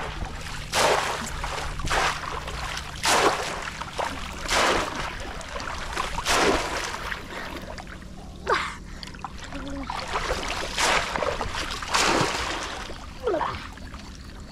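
Shallow muddy water splashing in separate bursts every second or two as a person wades, lies and gropes through it with arms and body.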